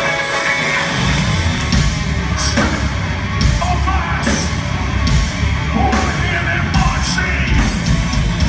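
A live heavy rock band playing. A clean guitar line gives way about a second in to the full band, with heavy drums and bass under it and a singer yelling into the microphone.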